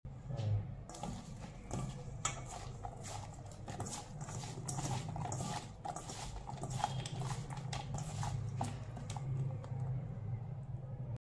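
Salted bitter gourd slices tossed by hand in a stainless steel bowl, the pieces clicking and rattling against the metal in quick irregular knocks that thin out near the end.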